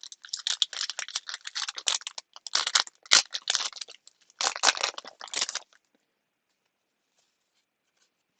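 Trading card pack wrapper crinkling and crackling as it is handled and torn open; the crackle stops about six seconds in.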